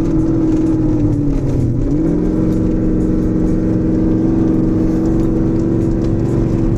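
Porsche Cayenne V8 engine heard from inside the cabin, pulling steadily as the car slides through mud. Its pitch dips about a second and a half in, climbs back about two seconds in, then holds steady.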